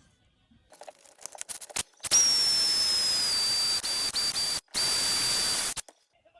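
A few light clicks and rattles, then a loud steady hiss with a thin high whistle above it, like air rushing from a nozzle, lasting about three and a half seconds with one short break near the end.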